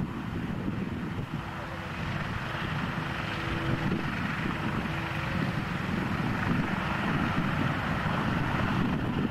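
Douglas DC-6's four Pratt & Whitney R-2800 radial piston engines running as the propliner taxis, a steady propeller drone growing slightly louder, with wind buffeting the microphone.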